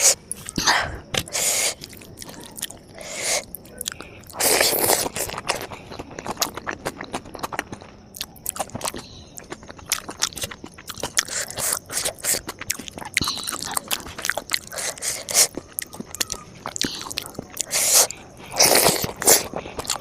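Close-miked mukbang eating: irregular chewing and crunching with wet mouth clicks, and a few louder crunchy bites, the loudest near the start, about a quarter of the way in, and near the end.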